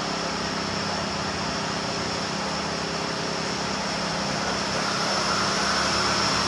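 Steady mechanical hum and hiss with a constant low tone, unchanging throughout, like a fan or air conditioner running.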